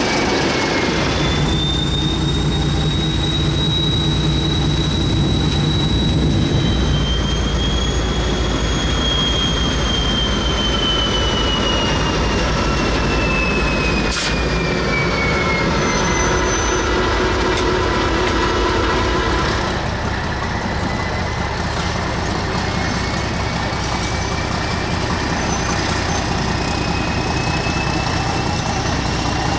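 Diesel locomotive engine running steadily at slow speed on curved track, with long high-pitched wheel squeals that slowly glide down and back up in pitch. One sharp click comes about halfway through.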